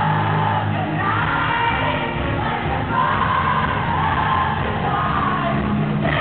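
Live pop concert recorded from the audience: a woman singing over the band, with the crowd singing along.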